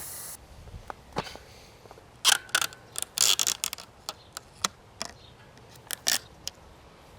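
A steady hiss that cuts off just after the start, then scattered sharp clicks and short rustles of bike parts and tools being handled during a bike build.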